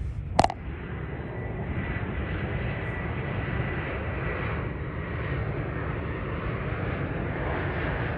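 Swiss Airbus A321neo jet on final approach: a steady engine rumble with a faint high whine. A short sharp click sounds about half a second in.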